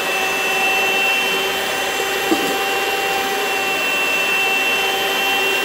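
Zelmer electric mixer running steadily on its stand, beaters whisking egg whites in the bowl, with a steady motor whine.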